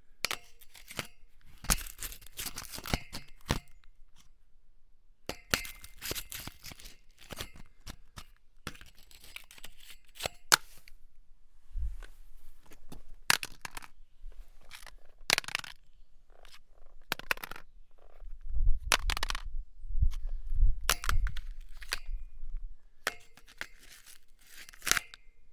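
An object grating and scraping against metal in a series of short bursts, with sharp metallic clinks and knocks between them. Some heavier dull thumps come about two-thirds of the way through.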